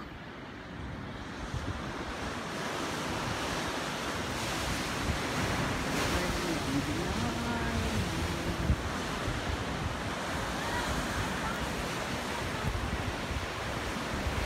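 Ocean surf breaking and washing over rocks at the foot of a cliff: a continuous rush of water that grows louder over the first couple of seconds, with wind buffeting the microphone.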